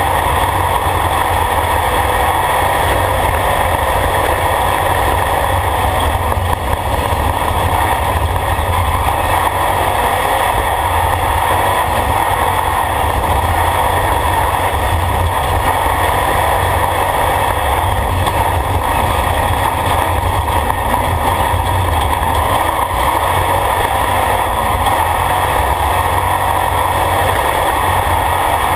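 Off-road race vehicle's engine running hard under load, heard from inside the caged cockpit, mixed with road noise from the dirt track. The sound is loud and steady throughout.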